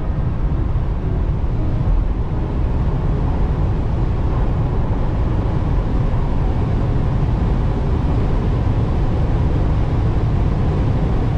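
Steady road and wind noise inside the cabin of a Tesla Model 3 Performance driving on the motorway at over 200 km/h: an even, deep rush of tyres and air with no engine sound.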